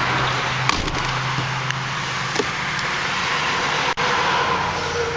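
1990 Cadillac Brougham's 5.0-litre V8 idling with a steady low hum, heard from inside the cabin over a steady hiss of background noise. A light click about a second in.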